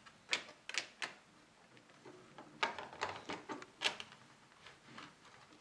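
Small, sharp plastic clicks and taps as an H0-scale model passenger coach is set on the track and pushed up against the model locomotive's couplers. About a dozen irregular clicks in two clusters, one near the start and one around three to four seconds in.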